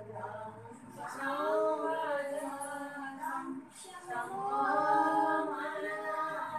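Group of female voices singing together in a devotional chant, with long held notes and short breaks for breath.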